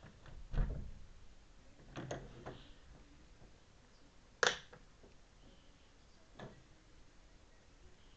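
A few scattered soft knocks and clicks over quiet room tone, the sharpest a single click about four and a half seconds in.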